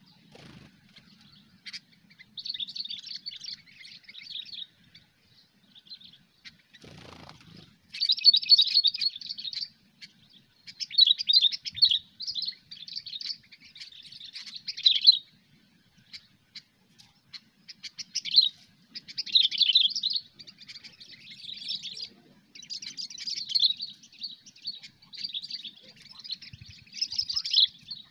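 Sooty-headed bulbul (kutilang) singing a fast, chattering 'cengkram' song in repeated bursts of one to two seconds with short pauses between.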